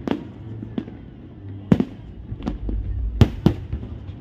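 Aerial fireworks bursting: about six sharp bangs over a low rumble, the loudest two in quick succession near the end.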